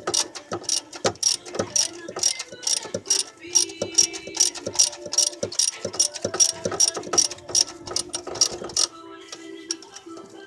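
Socket ratchet clicking as it is swung back and forth to unscrew a spark plug, a fast, even run of about four clicks a second. The clicking stops about nine seconds in.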